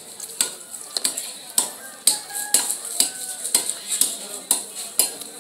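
Knife scraping the scales off a large rohu fish on a wooden block: a steady run of sharp, crisp strokes, about two a second.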